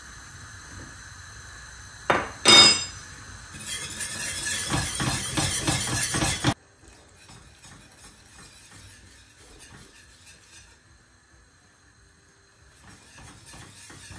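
Metal kitchenware knocking twice with a ringing clink, then a few seconds of rapid stirring and scraping in a pot that cuts off suddenly, followed by faint, scattered kitchen clicks.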